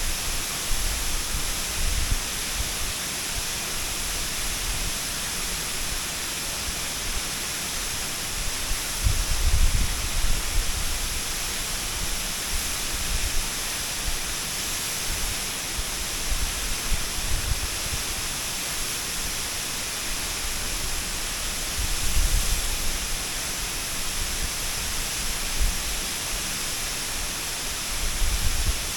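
Waterfall: a steady, even rush of falling water, with low rumbles swelling up several times, the strongest about ten seconds in.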